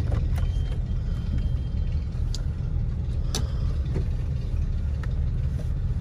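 Low, steady rumble of a Jeep SUV's engine idling, heard from inside the cabin, with a couple of faint clicks.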